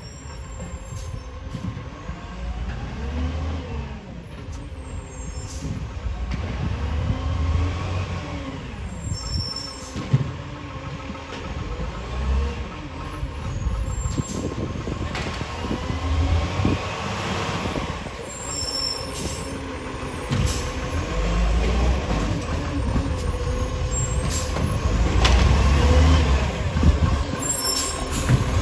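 Iveco side-loader garbage truck working along the kerb. Its diesel engine revs up in repeated surges every few seconds while the hydraulics whine up and down in pitch. There are occasional sharp knocks and squeals from the arm and bins.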